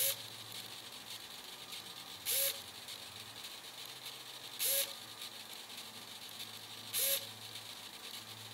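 Small hobby servo motor under PWM control, whirring briefly four times, a little over two seconds apart, as it swings quickly to each new position; a faint steady hiss between the moves.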